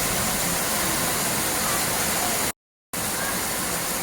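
Steady rushing of water, like a waterfall or fast stream, as an even roar. It cuts out completely for about a third of a second about two and a half seconds in, then resumes.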